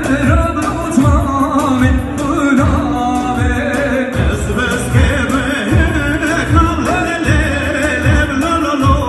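Music: a song with a singing voice carrying a wavering melody over a steady low drum beat, about two beats a second.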